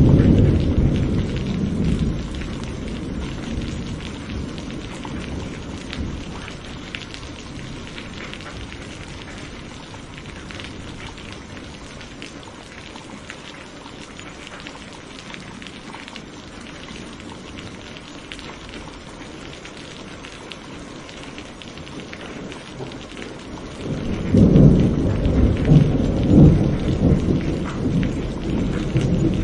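Steady rain falling, with a long rumble of thunder dying away over the first few seconds and another peal of thunder rolling in about 24 seconds in.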